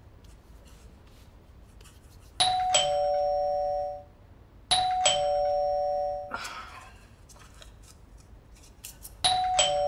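Two-tone ding-dong doorbell chime rung three times: twice in quick succession, then again after a longer pause. Each ring is a higher note followed by a lower one, held about a second and a half.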